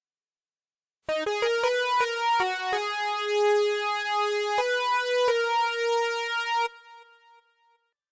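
Sampled synthesizer keyboard sound played in Kontakt. A quick run of short notes starts about a second in, then a short melodic phrase of longer held notes follows. It stops abruptly near the end and leaves a brief fading tail.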